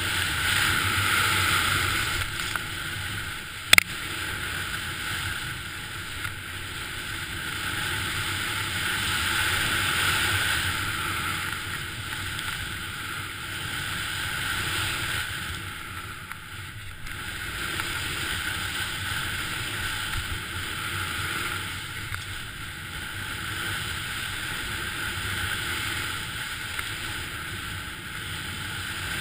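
Continuous rushing hiss of a rider descending through deep powder snow, snow spraying and sliding under the base mixed with wind over the camera microphone, rising and falling in slow swells. A single sharp knock about four seconds in.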